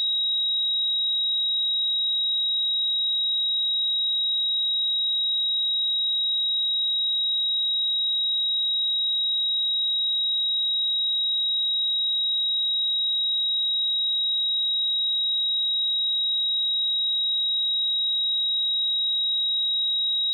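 Pure 3816 Hz sine-wave test tone, a single steady high-pitched whistle held at constant level.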